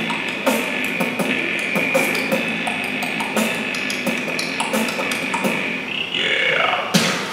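Beatboxing: evenly spaced mouth-made drum beats under a steady high tone, with a falling vocal swoop near the end.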